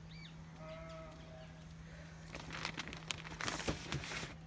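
A sheep bleats once, a call of about a second, followed by a louder stretch of rustling and crackling with sharp clicks lasting about two seconds. A faint steady hum runs underneath.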